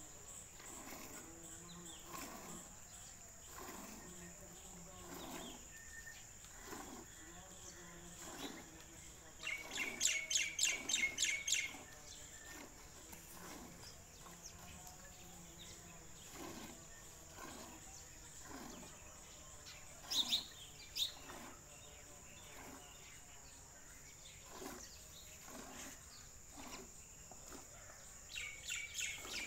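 Milk squirting in short rhythmic jets into a steel bucket during hand milking, about one squirt a second. Birds chirp in quick rapid series, loudest about ten seconds in, briefly around twenty seconds, and again near the end, over a steady high insect drone.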